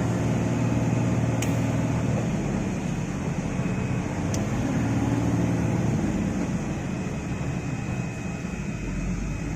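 Diesel engine of an IVECO 420 tractor unit running steadily with the throttle held down, pulling a loaded trailer through soft sand. Two short sharp clicks are heard, about a second and a half and four and a half seconds in.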